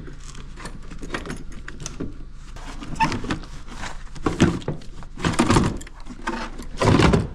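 A new 96R AGM car battery being slid and pushed into its snug battery tray in a Ford Focus ST engine bay: irregular scraping and hard plastic-and-metal knocks, loudest about four and a half, five and a half and seven seconds in.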